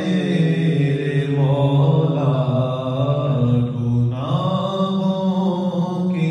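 A solo male voice chanting an Urdu munajat (devotional supplication) in long, held melodic lines that bend and glide in pitch.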